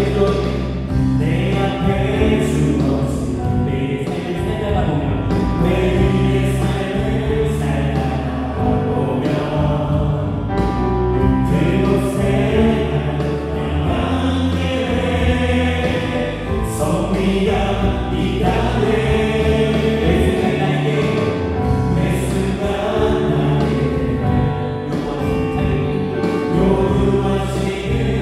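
Live contemporary worship song: a band with electric guitar, bass guitar, keyboards and drums playing, with group singing over it.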